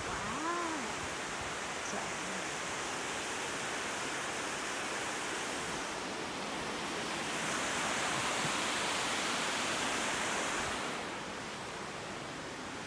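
Steady rush of a creek's flowing water, swelling louder for a few seconds past the middle.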